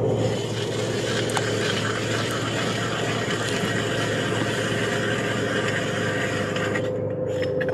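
Steady, even rushing noise with a constant low hum under it and no distinct events; it thins out near the end.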